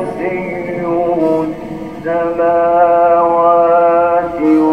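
A man's voice reciting the Quran in a melodic, chanted style, drawing out long sustained notes with slight ornamental wavering. A single long held note runs through the second half and steps to a new pitch near the end.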